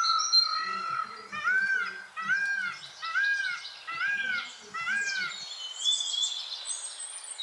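Birds calling: after a held whistled note, one bird gives a run of five arched whistled notes, each rising and falling, about one every 0.7 s, while higher, thinner chirps come in over the second half.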